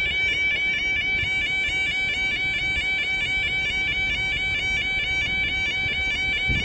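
Level crossing warning alarm sounding while the barriers are down: a loud, steady high-pitched warble repeating about five times a second, with the skipping cadence the alarm is known for.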